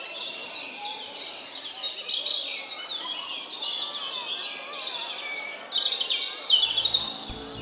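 Recorded birdsong: many birds chirping and twittering in quick, overlapping calls, played as park ambience. A music track with a low bass line comes in near the end.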